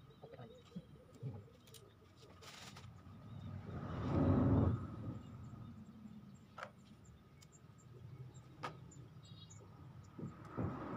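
A vehicle passing, swelling to its loudest about four seconds in and then fading, with a few sharp clicks later on.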